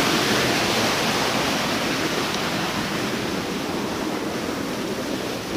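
Small waterfall pouring into a stream pool: a steady rush of water that slowly fades.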